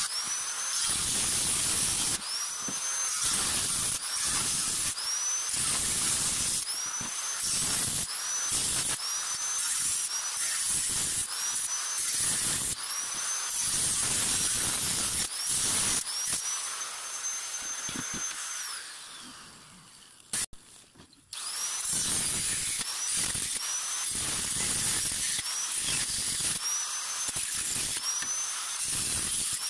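Angle grinder with an abrasive cut-off disc cutting a row of short slits into the rim of a thin steel pail, the cutting noise broken up about once a second with the motor's whine rising again between cuts. About eighteen seconds in the grinder winds down to a stop; after a click it starts again and goes on cutting.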